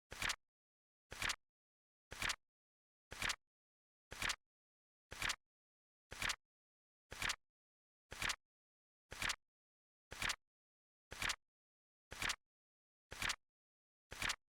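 Flip clock timer sound effect: a short, crisp double click as a card flips, repeating evenly about once a second, with dead silence between the clicks.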